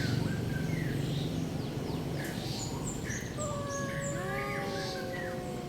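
Birds chirping in short high calls, then about halfway through a cat starts a long, drawn-out, held yowl: its 'singing'.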